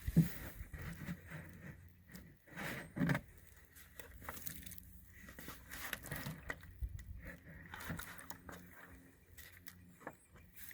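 Handling noise: scattered rustles, scrapes and light knocks, the loudest just at the start and another about three seconds in.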